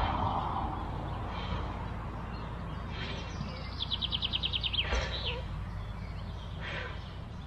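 Wild birds singing, with one fast trill of about ten quick high notes just before the middle and a few shorter calls around it, over a steady low rumble.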